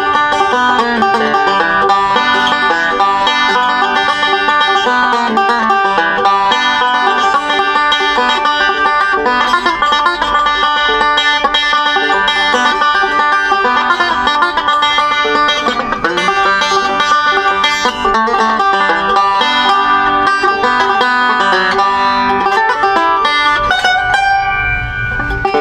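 Mountain resonator banjo picked with fingerpicks in fast three-finger bluegrass rolls, a test of how the freshly set-up instrument sounds. The playing stops near the end.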